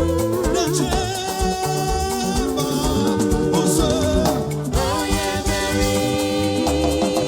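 Live gospel music: singing with held notes over a band with bass and percussion keeping a steady beat.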